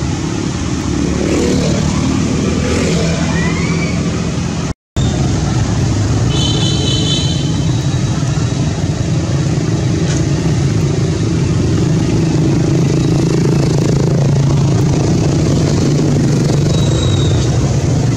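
A motor engine running steadily with a low, even hum, and a few brief high-pitched calls over it. The sound drops out for a moment about five seconds in.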